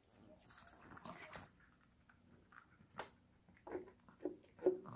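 A Pomeranian puppy licking at a ceramic plate: a sharp click about three seconds in, then three short wet mouth sounds about half a second apart.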